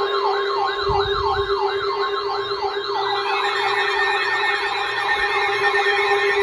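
Electronic siren sounding a fast yelp, its pitch sweeping up and down about two to three times a second over a steady low tone. A second yelp pattern joins about three seconds in.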